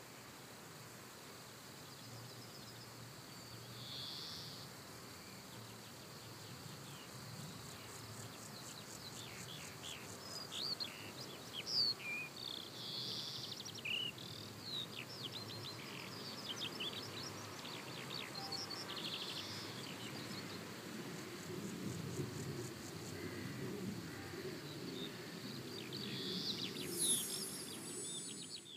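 Faint outdoor ambience: birds chirping in short rising and falling calls, most of them between about ten and twenty seconds in, over a steady insect hiss.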